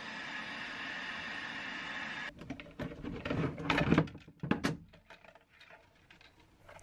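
Handheld heat gun blowing steadily, a fan hiss with a strong whine in it, switched off suddenly about two seconds in. It is followed by clicks and knocks of the plastic fuel-pump basket being handled.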